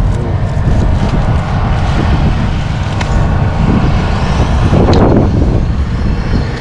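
Wind buffeting the microphone: a loud, steady, flickering low rumble, with a short louder noise about five seconds in.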